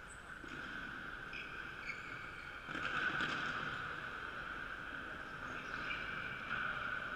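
Reverberant sports-hall ambience of players running on a wooden court, with short sneaker squeaks over a steady hiss; it grows a little louder about three seconds in.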